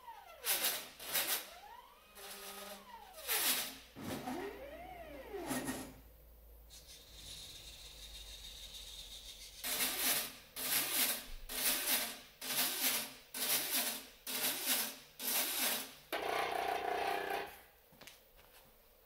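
A mushroom-inoculating robot's motors and mechanisms at work: three whines that rise and then fall in pitch, then a steadier hum, then about seven evenly spaced noisy pulses, about one a second, and a longer stretch of noise near the end.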